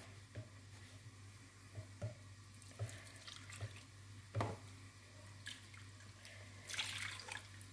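Water poured in small splashes and drips from a plastic jug into a bowl of semolina being mixed by hand, with soft wet sounds; the loudest splash comes about halfway and a longer pour near the end. A faint steady low hum runs underneath.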